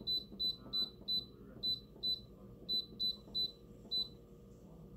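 Instant Pot electric pressure cooker's control panel beeping once for each button press, a string of short high beeps in quick runs with short pauses, as the cooking time is stepped up to 75 minutes on the meat/stew setting.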